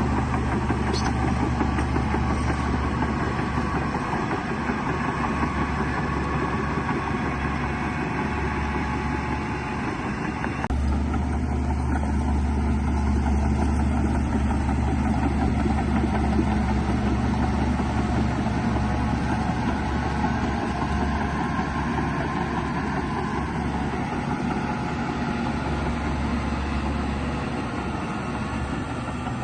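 Heavy diesel earthmoving machinery running steadily with a deep low drone. The sound changes abruptly about ten and a half seconds in.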